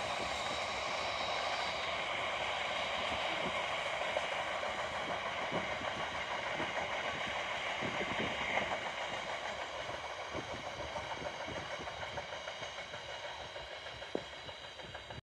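A long freight train of Drax biomass hopper wagons rolling past, its wheels clicking irregularly over the rail joints. The sound fades slowly as the tail of the train goes by, then cuts off abruptly just before the end.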